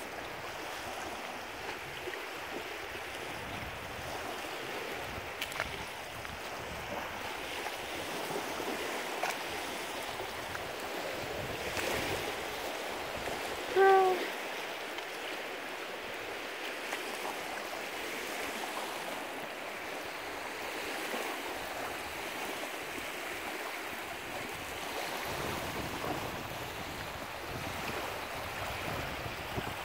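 Small waves lapping and washing onto a pebble and rock lakeshore: a steady rush of water. About fourteen seconds in, a short pitched call, the loudest sound, cuts in briefly over it.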